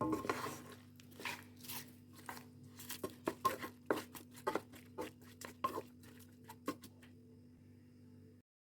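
Kitchen handling sounds: a quick run of short clicks, scrapes and crinkles over a steady hum, stopping about seven seconds in.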